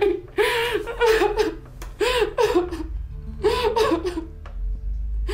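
A woman crying hard, sobbing in short, breaking cries about two a second, in runs with brief pauses between them.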